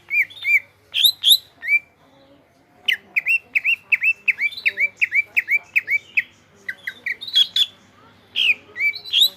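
Cucak ijo (green leafbird) singing loudly in phrases of short, sharp whistled notes, with a rapid run of about a dozen repeated notes in the middle and short pauses between phrases.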